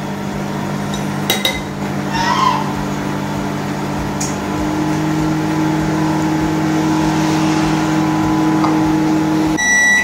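Sharp R-88D0(K)-IN convection microwave oven running on convection preheat, a steady hum. The hum cuts off suddenly near the end and a high beep sounds, the oven signalling that it has reached its preheat temperature.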